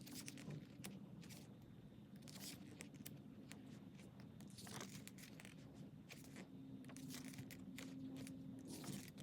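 Faint rustling and crinkling of photo book pages being turned and handled, with scattered small clicks of paper.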